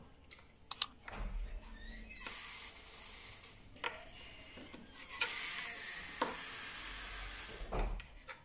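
Knife scraping and clicking on rock clam shells as they are cleaned at a kitchen sink: two sharp clicks about a second in, then a steady hiss with scattered knocks.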